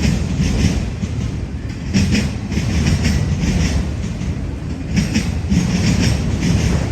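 Freight train cars rolling past, with a steady rumble and wheels clicking over rail joints in regular groups.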